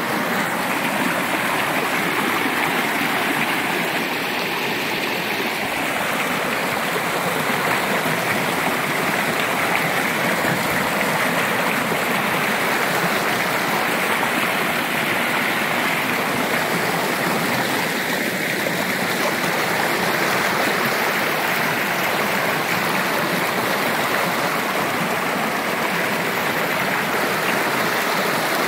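Steady rush of a fast stream pouring as white water over and between rocks in a small cascade.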